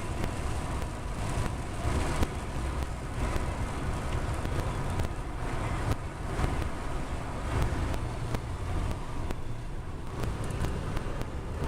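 Wind buffeting the microphone: an uneven low rumble with a steady hiss and scattered faint ticks.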